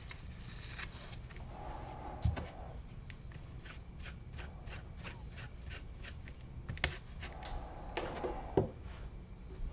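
Soft scuffing and rubbing of a foam brush working stain onto cut-out wooden pieces, with light taps throughout and a few sharper knocks, over a low steady hum.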